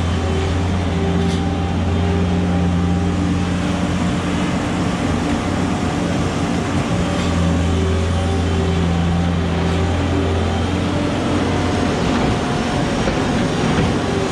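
An engine running steadily, a low hum that strengthens and eases a couple of times.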